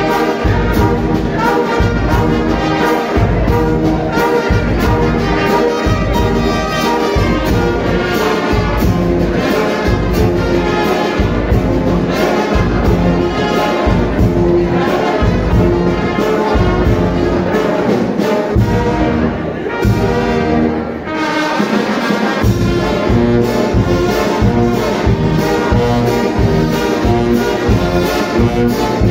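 Live Mexican banda brass band playing: trumpets, trombones and sousaphone over snare and bass drum keeping a steady beat. The low beat drops out briefly about two-thirds of the way through, then returns.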